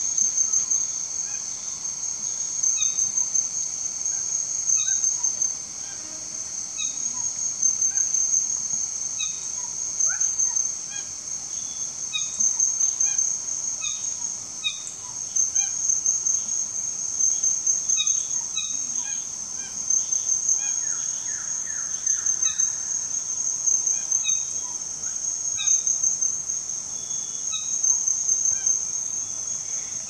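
Repeated loud calls of a displaying male red bird-of-paradise, one every second or two, over a steady, high, pulsing chirr of insects.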